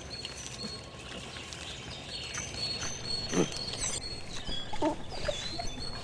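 Dogs whining and yelping, with one long cry falling in pitch about three and a half seconds in and shorter cries near the end. Short high chirps repeat throughout.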